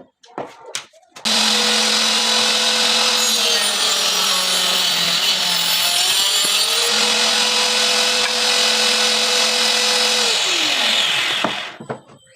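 Homemade table saw driven by a converted hand-held electric cutter, switched on and running at full speed with a steady whine. Its pitch sags for a couple of seconds midway as the blade cuts under load, then it is switched off and winds down near the end.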